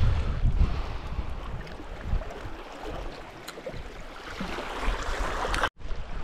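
Wind buffeting the microphone over sea water washing against rocks, the low rumble easing after the first couple of seconds. The sound drops out for a moment near the end.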